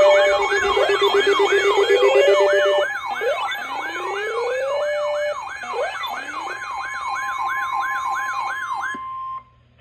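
Several electronic emergency sirens sounding together: a fast yelp of falling sweeps, about three a second, over a slower rising wail that repeats every couple of seconds in the first half. They cut off abruptly near the end.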